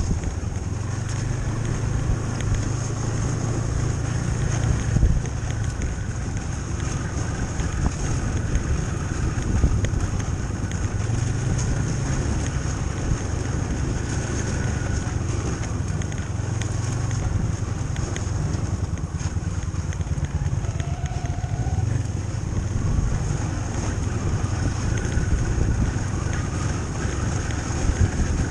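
Snowmobile running steadily along a trail, its engine and track drone swelling and easing a little with the throttle, with some wind noise.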